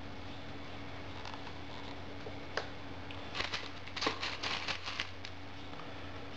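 Small metal studs clicking and rattling in a small plastic box as fingers rummage through them: a single click, then a quick run of clicks lasting about two seconds, over a steady low hum.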